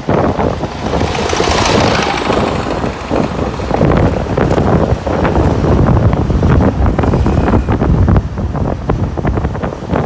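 Wind buffeting the microphone: a loud, uneven low rumble, with a hiss that swells about one to two seconds in.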